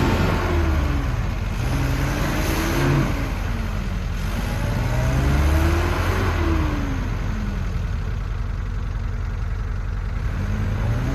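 SUV engine revving up and dropping back several times, as the vehicle tries to drive out of a rut it is stuck in. The revs ease off in the second half, then climb again near the end.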